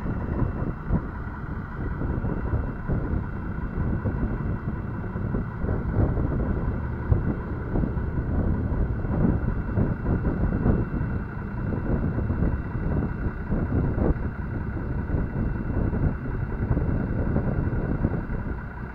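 Wind buffeting the microphone over the steady running of a military 6x6 truck's diesel engine.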